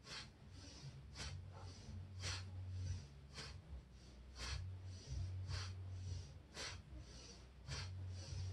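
A woman's quick, forceful breaths, about one a second, each timed to a side-to-side spinal twist: an inhale as she turns one way, an exhale as she turns back.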